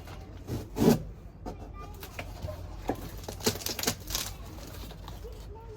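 Irregular rustling and clicking of a plant delivery package being handled and opened, loudest about a second in.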